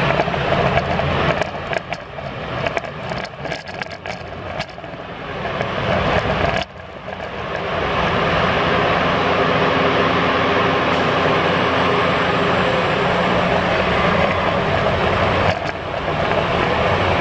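Carvana car vending machine's lift machinery running, a continuous mechanical whir over a low hum as it carries a car up the tower. For the first few seconds the sound is uneven, with scattered clicks. It drops out briefly about six and a half seconds in, then runs steady.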